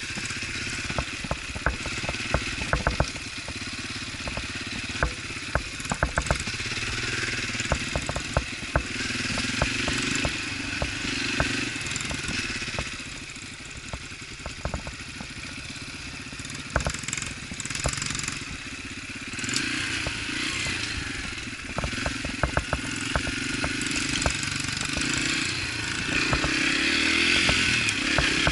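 Small four-stroke single-cylinder trail dirt bike running as it is ridden, engine speed rising and falling, with many sharp clacks and knocks throughout; it gets louder near the end.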